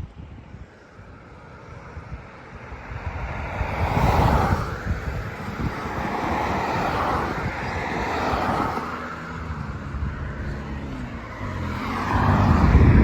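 Road traffic: several vehicles going by one after another, each swelling and fading away. The last one, near the end, is the loudest.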